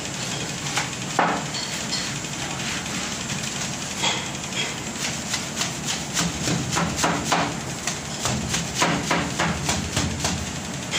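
Broom sweeping a hard floor: short, sharp strokes that come a few a second, getting busier about halfway through, over a steady background hum.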